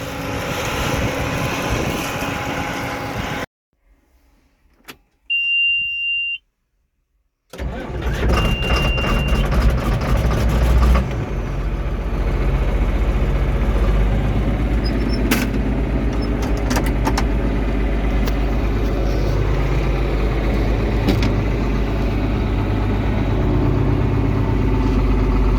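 Diesel farm engine running, then a sudden drop to near silence broken by a steady high warning beep. A second beep sounds as an engine cranks and catches, and from about eleven seconds in it runs steadily.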